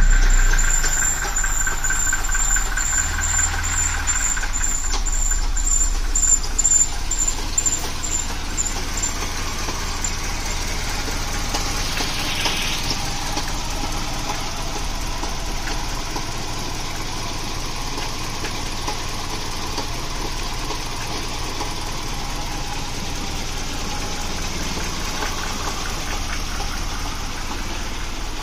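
Mercedes-Benz M102 2.0-litre eight-valve four-cylinder engine, converted from carburettor to electronic fuel injection on a homemade ECU, just started. It runs a little unevenly for the first few seconds, then settles into a steady idle.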